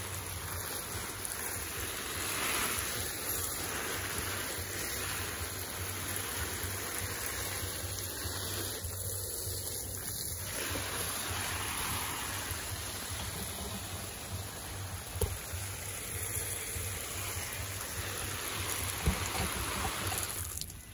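Water spraying from a garden hose onto the garden plants, a steady hiss of spray.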